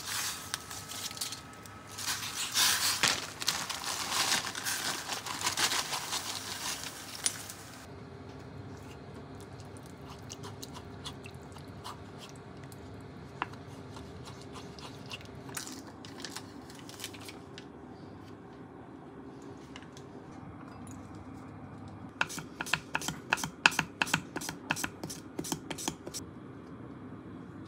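Torn cabbage leaves rustling and crunching as handfuls are pressed into a stainless steel pot. Then a quieter stretch of light clicks from two wooden spatulas stirring miso soup in the pot. Near the end a cucumber is run quickly over a handheld mandoline slicer, about five slicing strokes a second.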